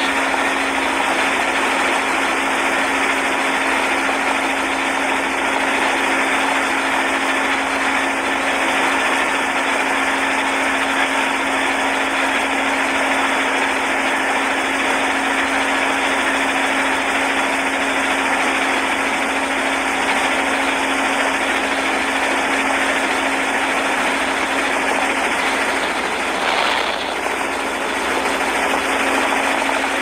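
Motorboat engine running steadily: a constant hum under a loud, even rushing noise, with a brief dip about 27 seconds in.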